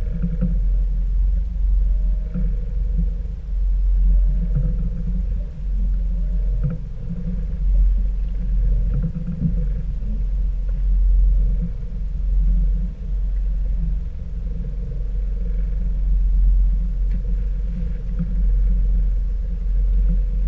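Steady low rumble of a boat's twin outboard motors running, with a faint steady whine above it.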